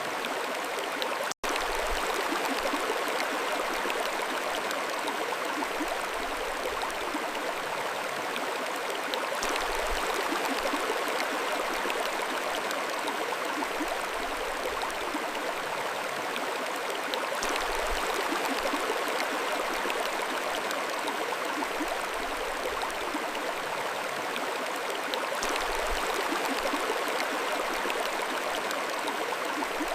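Mountain stream flowing steadily, a dense rushing and gurgling of water over stones. The sound drops out for an instant about a second and a half in.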